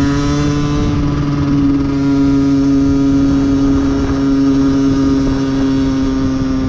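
Small two-stroke 50cc moped engine buzzing at steady high revs while cruising. Its pitch rises slightly in the first second, then holds even.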